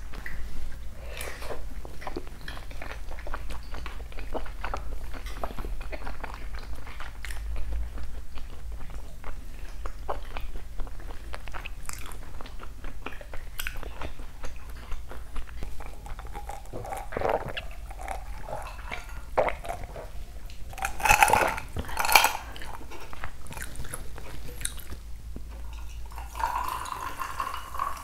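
Close-miked chewing of seasoned raw beef tartare (yukhoe), with many small wet mouth clicks, and two louder sharp sounds a little after two-thirds through. Near the end, a drink is poured from a can into a glass.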